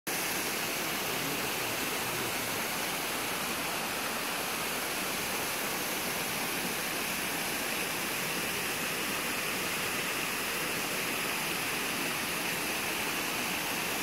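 Waterfall spilling in thin streams down a steep rock face: a steady, even rush of falling and splashing water.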